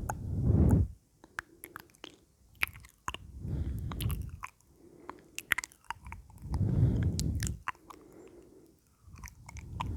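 Close-miked ASMR mouth sounds: wet clicks and smacks of lips and tongue, with slow, heavy breaths into the microphone about every three seconds.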